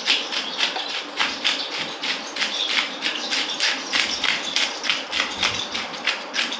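Fish being scaled with a knife: quick, even scraping strokes, about three a second, as the blade rasps the scales off a large river fish.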